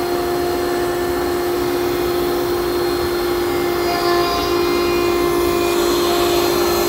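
Table-mounted router running at full speed, a steady high whine, while a 1/8-inch roundover bit cuts the edge of a cocobolo board fed along the fence.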